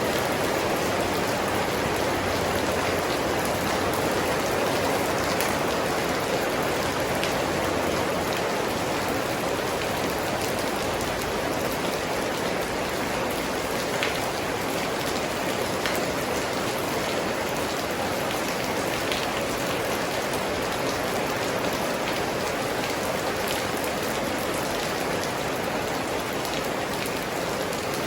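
Steady rainfall, a constant hiss of rain with scattered individual drops ticking on surfaces.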